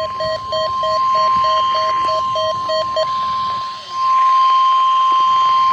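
NOAA Weather Radio 1050 Hz warning alarm tone, one steady loud tone that dips briefly just before four seconds in and then carries on. For the first three seconds a lower beep pulses about three times a second alongside it, then stops.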